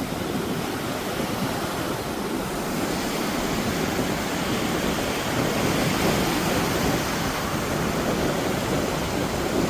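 Surf washing in along the beach, with wind rumbling on the microphone: a steady rush of noise.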